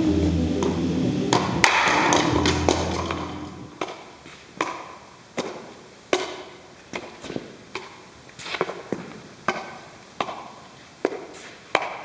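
Juggling clubs slapping into the hands as they are caught, a sharp knock about every half second to second, each with a short echo off the metal walls of the arched shed. Background music plays at first and fades out about four seconds in.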